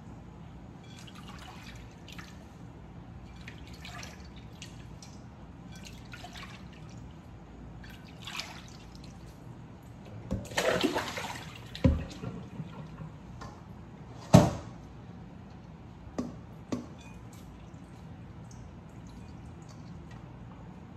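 Water sloshing and splashing as shredded green papaya and carrot are rinsed by hand in a glass bowl of cold water in a stainless steel sink. A louder splash comes about halfway through, followed by two sharp knocks of the bowl against the sink.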